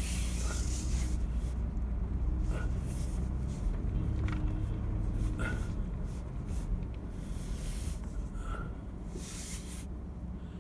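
A vehicle being driven slowly over rough ground, with a steady low engine and drive rumble. Brief rattles and short squeaks come through now and then.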